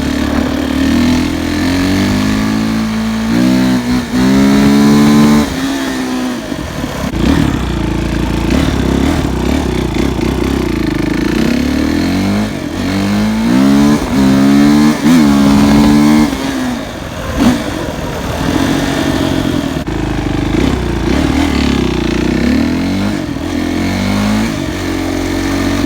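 Suzuki RM-Z450 single-cylinder four-stroke dirt bike engine revving hard under acceleration, its pitch climbing in steps as it shifts up through the gears, then easing off and pulling again.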